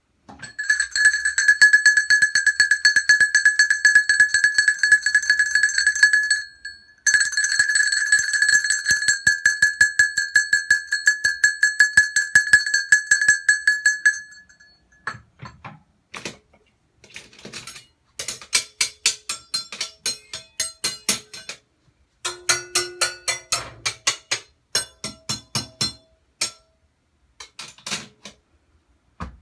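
A bell ringing with very rapid strokes in two long bursts of about six and seven seconds, with a short break between them. These are followed by several shorter runs of rapid clinking and rattling strikes.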